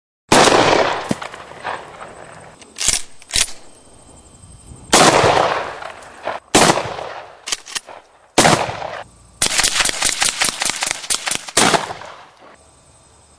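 Gunfire: a series of sharp, loud single shots over the first eight seconds, several followed by a long echoing tail, then a rapid string of shots lasting about two seconds near the end.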